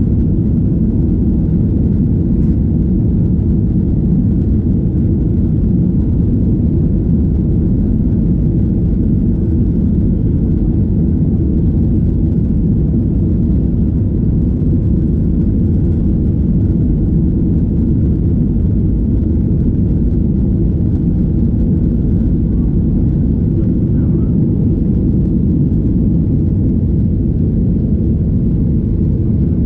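Cabin noise of a Boeing 737-800 on its takeoff roll: the CFM56-7B engines at takeoff thrust and the runway rumble blend into a loud, steady, deep roar heard from inside the cabin.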